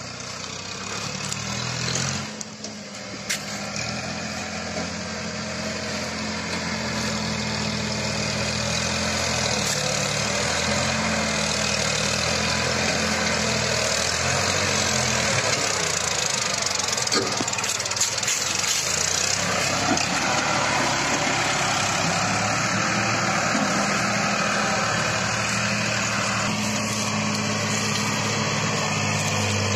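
Farmtrac 65 diesel tractor engine running steadily under heavy load while pulling a trolley fully loaded with logs. It grows louder over the first several seconds as it comes closer, with a few sharp knocks now and then.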